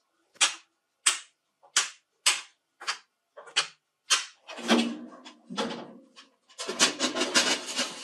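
Thin metal pieces set down one at a time on a ribbed metal baking tray: about seven sharp clinks, roughly two-thirds of a second apart. Near the end comes a longer, denser metallic clatter.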